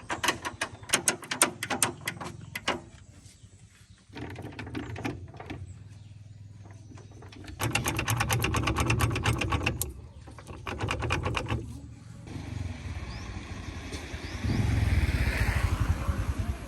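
Rapid mechanical clicking in several bursts of one to three seconds, then a low rumble that swells near the end.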